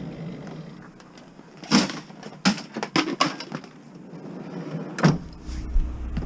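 Scrap being handled: a string of sharp knocks and clanks, the loudest about two seconds in and again about five seconds in.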